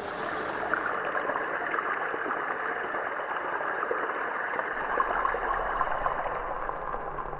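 A fast-flowing stream rushing over shallow rapids: a steady rush of water.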